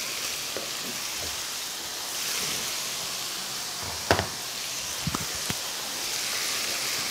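Chicken pieces frying in a pan with a steady sizzle, plus a sharp knock about four seconds in and two lighter knocks soon after.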